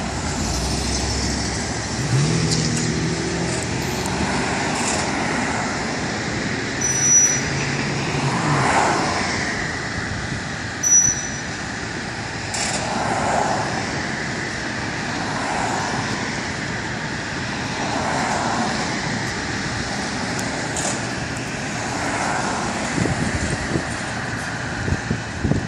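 Road traffic going by, cars and trucks passing one after another in repeated swells, with an engine's steady hum for several seconds near the start and two brief high squeaks.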